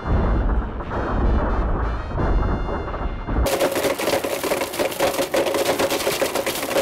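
Music, then about three and a half seconds in two Blendtec Total Blenders start at full speed: a steady motor whine with a dense, harsh rattle of smartphone fragments being smashed against the jars.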